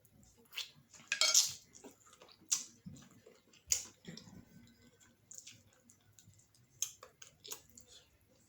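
Eating utensil clinking and scraping against a plate in irregular short strokes, the loudest cluster about a second in, with faint mouth sounds of eating between.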